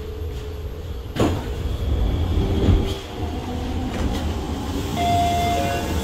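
Low rumble of a C751B metro train as it stops at the platform and its doors open, with a sharp clunk about a second in. Near the end a steady electronic tone sounds.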